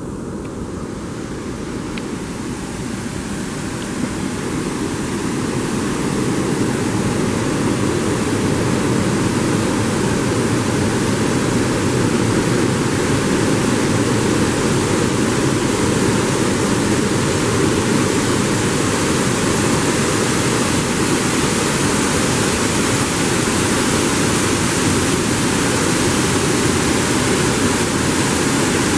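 Water pouring through a river sluice and splashing into the pool below: a steady rushing that grows louder over the first several seconds, then holds.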